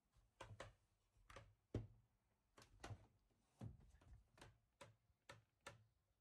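Near silence broken by faint, irregular clicks and knocks, about a dozen of them.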